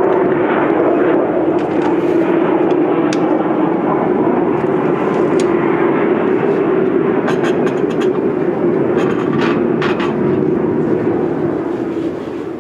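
Military aircraft passing over, a loud steady drone that begins to fade near the end.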